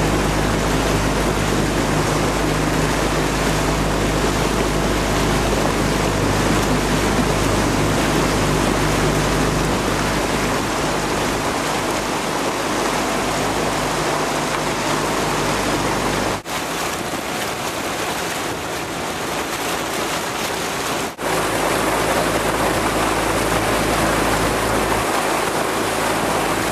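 Steady rush of water and wind with a low motor hum beneath it, as from a motorboat running alongside a sprint kayak at speed. The sound breaks off for an instant twice, about 16 and 21 seconds in.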